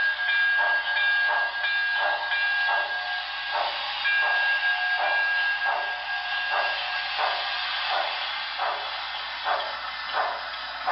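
Paragon 3 sound system of a Broadway Limited Pennsylvania K4s model steam locomotive, played through the model's own speaker, with steady steam exhaust chuffs about three a second as the locomotive runs. Over the chuffs the steam whistle blows, with a short break about three and a half seconds in, and stops about two-thirds of the way through. The chuffs go on, a little softer.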